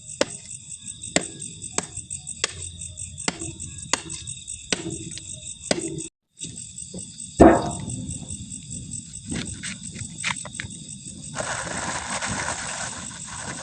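Crickets chirping in a steady high trill, with sharp light knocks roughly every two-thirds of a second over the first six seconds. The sound drops out briefly about six seconds in, and a rushing noise comes in near the end.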